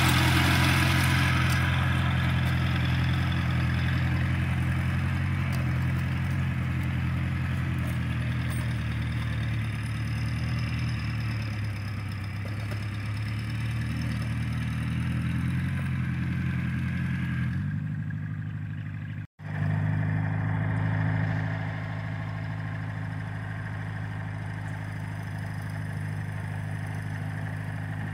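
Massey Harris Pony tractor's small four-cylinder engine running steadily at a constant pace while pulling cultivator shanks through the soil. The sound drops out for an instant about two-thirds of the way through.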